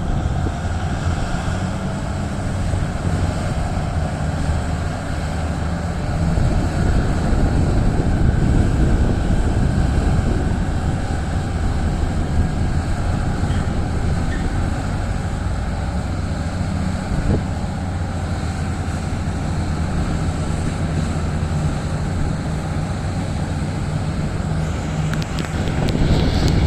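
Heavy diesel earthmoving machinery running at work: a steady low engine rumble that swells slightly now and then.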